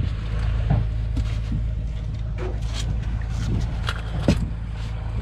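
Boat engine running steadily at low revs, with scattered knocks and thuds from handling on deck, the loudest about four seconds in.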